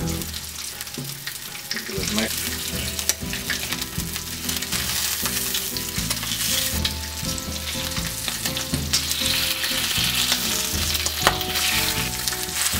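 Bacon strips sizzling in hot fat in a cast iron skillet, with occasional clicks and scrapes from tongs turning them.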